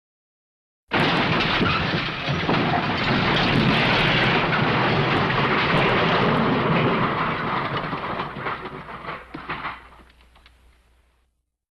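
A loud, dense rushing and rumbling sound effect that cuts in abruptly about a second in, holds steady, then thins out and fades away near the end.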